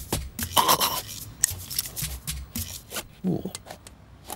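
Cartoon sound effects: a quick run of light clicks, taps and rubbing, scuffling noises, with a short gliding vocal grunt about three seconds in.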